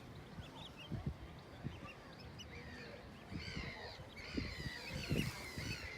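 Young waterbird chicks peeping: many short, high calls, a few at first and then a quick busy series from about three seconds in. Low bumps on the microphone underneath.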